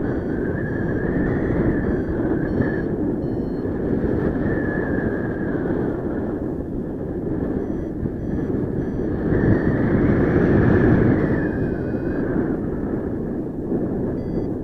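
Airflow rushing over the microphone during a paraglider flight. Through it come short high electronic beeps, changing in pitch and a few per second, typical of a flight variometer signalling lift; they pause for a moment midway.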